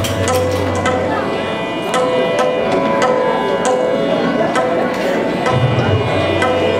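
Instrumental music: tabla strokes over steady held notes, with deep bass strokes of the tabla near the start and again about five and a half seconds in.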